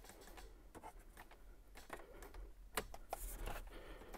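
A few faint, spread-out clicks from a two-step push-button switch being pressed and the relay it works clicking; the switch is touchy and does not latch.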